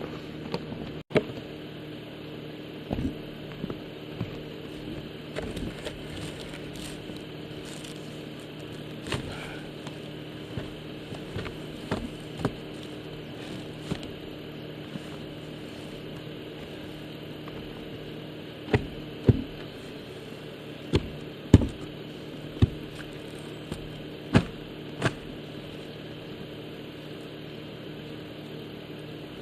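A snow shovel scraping and knocking against a ribbed metal roof while snow is chopped loose and pushed off: scattered sharp knocks, with a run of louder ones about two-thirds of the way in. A steady low hum sits underneath.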